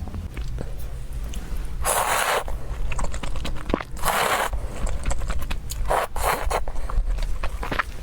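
A person eating close to the microphone: chewing and biting, with three short crunching or rustling bursts about two, four and six seconds in.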